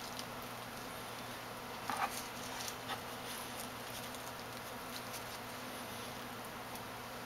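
Soft handling sounds of hands placing and pressing crispy chicken strips onto a tortilla on a plastic cutting board: light rustles and a couple of soft taps, the loudest about two seconds in, over a steady low hum.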